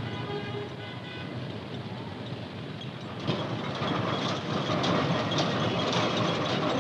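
City street traffic with brief car-horn toots. About three seconds in, a louder, steady clattering of building-site machinery sets in, full of sharp knocks.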